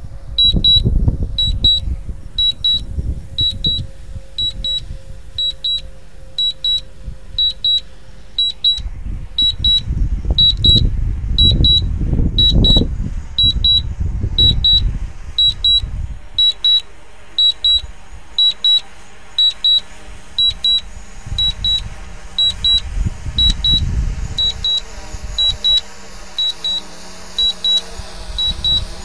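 Drone flight app's autolanding alert: a high double beep repeating a little faster than once a second, over bursts of low rumble that are loudest around ten to thirteen seconds in.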